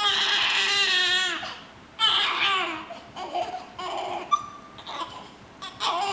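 Newborn baby crying while being bathed: a long cry at the start, a shorter one about two seconds in, softer fussing after, and another cry beginning near the end.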